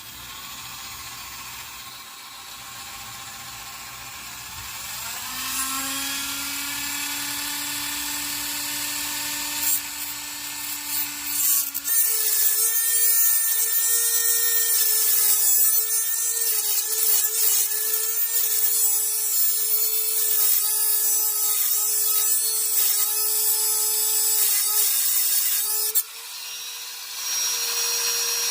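Dremel rotary tool cutting through a seized exhaust Y-pipe bolt: a high-pitched whine over a steady grinding hiss. The whine rises in pitch about five seconds in, the sound changes abruptly about twelve seconds in, and it dips briefly near the end.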